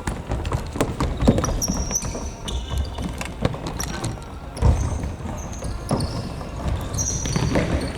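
Indoor futsal play in a gym hall: a ball being kicked and bouncing with repeated thuds, and short high squeaks of shoes on the court floor.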